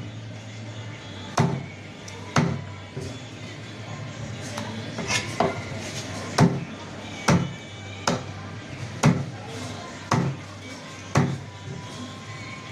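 A heavy cleaver chops a red snapper into steaks on a thick wooden chopping block, going through flesh and backbone. There are about nine sharp chops, roughly one a second.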